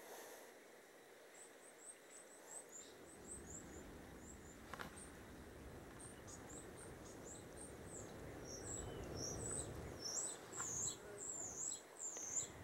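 A small bird singing a rapid string of short, high chirps that grows louder and more varied toward the end, with quick down-and-up slurred notes, over a faint low rumble.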